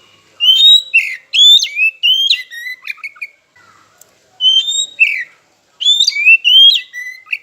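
Oriental magpie-robin singing loud, clear whistled phrases of quickly rising and falling notes, in three bursts with brief pauses between them.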